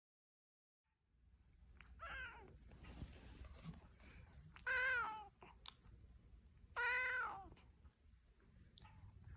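A domestic cat meowing three times, about two seconds apart, each call about half a second long, the second and third louder than the first; a fourth meow starts right at the end. A low background hum runs under the calls after about the first second.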